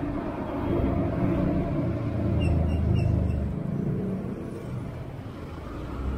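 A motor vehicle passing close by: a low rumble that swells to its loudest about three seconds in and then fades away, with a few short high chirps near the middle.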